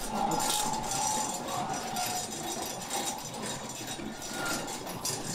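Hand chain of a roll-up warehouse door rattling and clinking as the door is hauled up, with the door's slats rolling.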